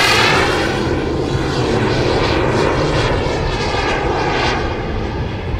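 Turbine engine of a 1/5-scale Skymaster F-16 radio-controlled jet making a close, fast pass, a loud rushing whine whose tone sweeps down as it goes by, then running on more distantly as it climbs away, fading slightly near the end.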